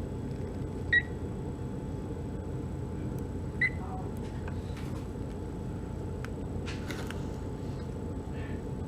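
A pet budgerigar giving two short, high single chirps, about a second in and again two and a half seconds later, over a steady low room hum, with a few faint clicks near the end.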